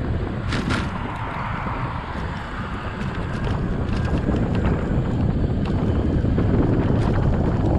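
Wind buffeting the microphone of a GoPro on a moving bicycle, over a steady rumble of tyres on the road. Two sharp clicks come about half a second in.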